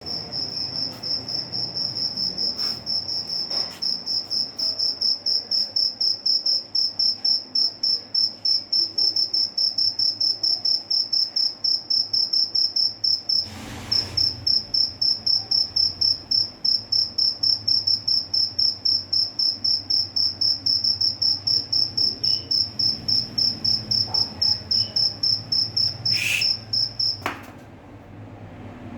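A cricket chirping: a high, even pulsed call of about four or five chirps a second that stops near the end, with a couple of brief knocks along the way.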